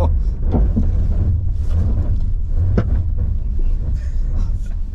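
Low rumble in the cabin of a 2024 Subaru Crosstrek Sport creeping down a steep, rutted dirt trail on hill descent control, with scattered knocks and clunks, the plainest nearly three seconds in.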